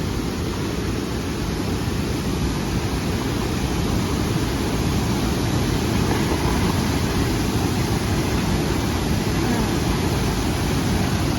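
Waterfall: a steady rush of falling water, heaviest in the low end.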